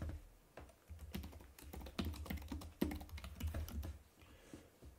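Typing on a computer keyboard: a quick run of key clicks that pauses briefly within the first second and stops about four seconds in.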